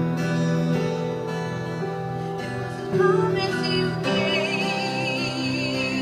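Music: strummed acoustic guitar, with a singing voice coming in about three seconds in.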